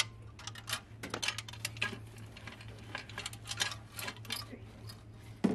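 Irregular light metallic clinks and knocks as the aluminium upper intake plenum of a VQ35DE V6 is rocked free and lifted, its loose fasteners rattling in their holes, with a louder knock near the end.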